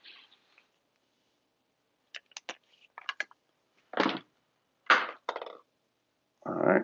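Tabletop handling noises: a run of small clicks about two seconds in, then a few short, louder knocks and rustles.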